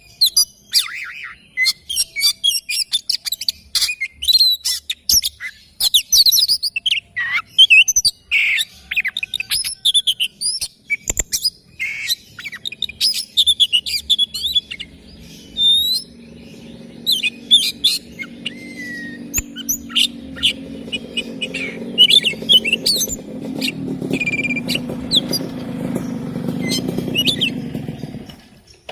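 Oriental magpie-robin (kacer) singing a fast, varied run of chirps and whistles. A deep rumble builds from about halfway through and stops abruptly near the end.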